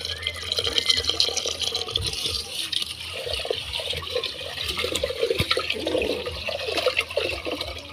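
Tap water running into an aluminium pressure-cooker pot of raw rice. From about three seconds in, hands swish and stir the rice in the water to wash it.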